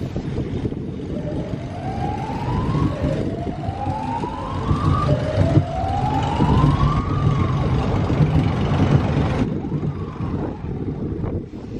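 Wind buffeting the microphone on a spinning fairground ride. A siren-like tone rises three times in a row, each whoop lasting about two seconds, then stops about seven seconds in.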